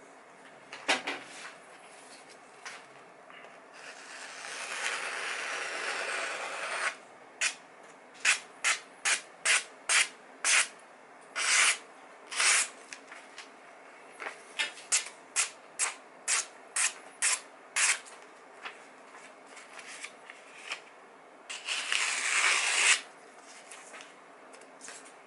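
Freshly sharpened knife slicing through a glossy magazine page in a paper-cutting sharpness test: a run of quick, crisp cuts at about two a second, with a few seconds of longer continuous paper noise near the start and again near the end.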